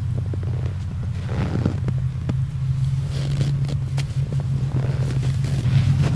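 A steady low engine hum, with scattered light clicks and knocks over it.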